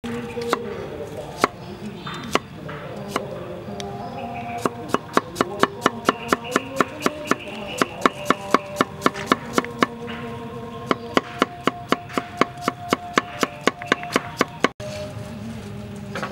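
Cleaver chopping potato on a wooden cutting board. A few separate knocks come first, then a fast, even run of strokes at about four or five a second, with a short pause partway through.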